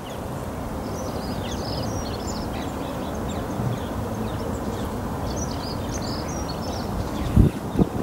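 Small songbirds chirping and twittering in the background over a steady low outdoor rumble, with a couple of low thumps near the end.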